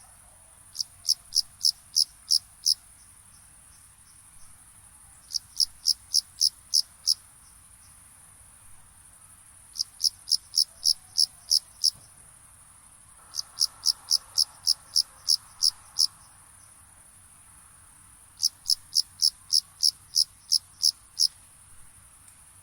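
Cricket chirping at night in five bouts of about seven to nine evenly spaced, high-pitched chirps, roughly three to four a second, with pauses of about two seconds between bouts. A steady high-pitched drone runs underneath.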